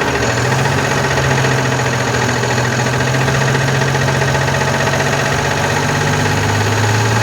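Diesel engine of a Volkswagen Constellation 19.320 truck running steadily at a constant low pitch, which drops slightly near the end.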